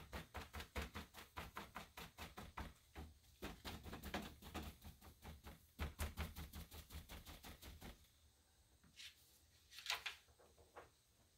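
A homemade pounce bag (two socks filled with talcum powder) patted over and over onto a perforated paper pattern, pushing powder through the holes to mark the outlines. The soft pats run quickly and evenly, about five a second, and stop about eight seconds in.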